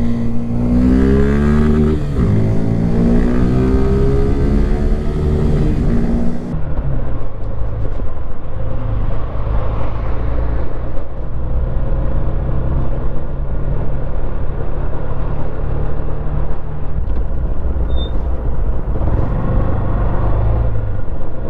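Suzuki Gixxer 150's single-cylinder engine and exhaust: for the first six seconds the note rises and falls repeatedly as the engine is revved up and eased off, then it settles into a steadier, lower running note with small swells in pitch.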